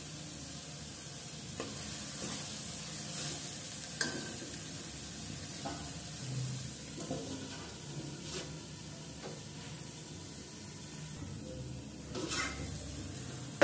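Masala sizzling in oil in a stainless steel kadhai, with a steel spoon scraping through it every second or two. This is the bhuno stage, frying the paste until the oil separates. There is a louder metal stroke near the end.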